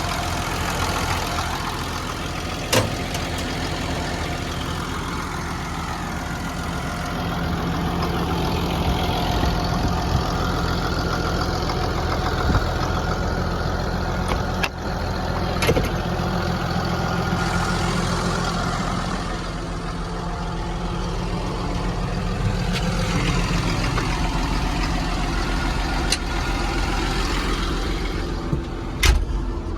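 Caterpillar D6N bulldozer's Cat diesel engine idling steadily, with a few sharp knocks over it, the loudest near the end.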